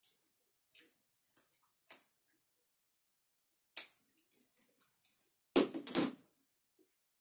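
Plastic Lego bricks being handled and sorted: scattered small clicks, and a louder clatter of several pieces near the end.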